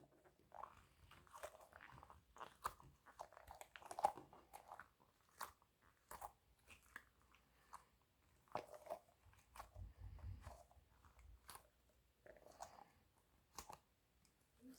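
A white squishy toy being squeezed and pressed by hand, giving faint, irregular crackles and sticky clicks.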